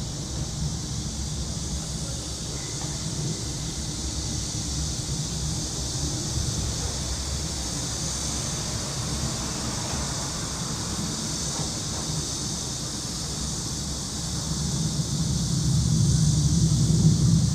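Summer cicada chorus making a steady high-pitched drone, over a low rumble of city traffic that grows louder near the end.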